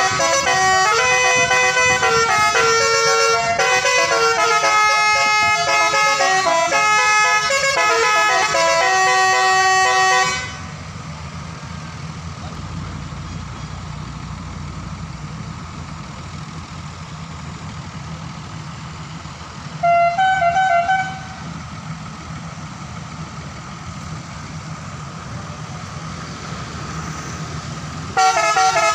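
Multi-tone telolet horn playing a quick tune of changing notes for about ten seconds, then stopping. A steady low rumble carries on, with one short horn toot about twenty seconds in, and the tune starts again just before the end.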